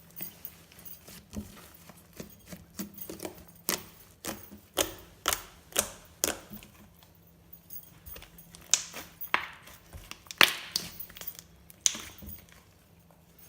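Glossy slime being squished and poked, making irregular sharp clicks and wet pops, loudest about ten seconds in and dying away near the end.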